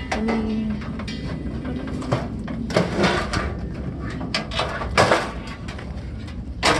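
Irregular scraping, rustling and knocks as a copper degaussing cable is pulled off a CRT television tube and handled, with sharper clicks about three and five seconds in.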